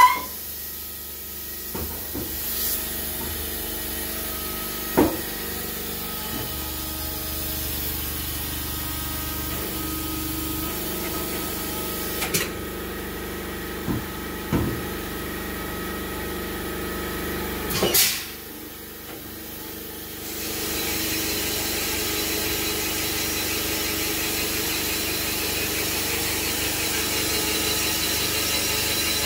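Cylinder boring machine running with its boring bar cutting a bore in a cast-iron Nissan RB30 engine block: a steady machine sound with a few sharp clicks, the loudest about 18 seconds in. It dips quieter briefly after that, then runs on a little louder with a thin high whine.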